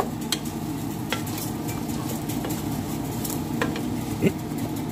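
Wooden spoon stirring raw rice, diced onion and carrot in a stainless steel pot, the grains rustling and scraping, with a steady sizzle of butter underneath and scattered light clicks of the spoon against the pot. The rice is being sautéed in the butter for a pilaf.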